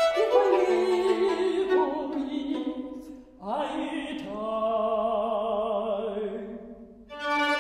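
A mezzo-soprano sings slow, held phrases with wide vibrato in a resonant hall, breaking off briefly about three seconds in. Near the end the voice fades and a steady violin note takes over.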